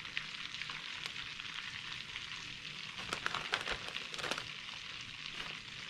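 Butter sizzling in a small frying pan around breaded shark pieces frying over low heat: a steady crackling hiss, with a few sharper pops about three to four and a half seconds in.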